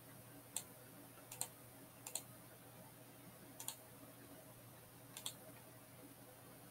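Computer mouse clicks, a few single clicks and quick double clicks spread a second or so apart, over a faint steady hum.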